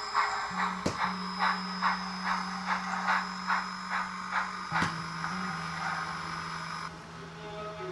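Model steam locomotive chuffing at about two chuffs a second, fading out about six seconds in, over background music with long held notes.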